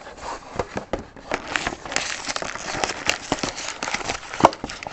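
Plastic shrink wrap and cardboard of a sealed trading-card box crinkling and tearing as it is unwrapped and opened by hand, a dense run of small crackles with one sharp snap near the end.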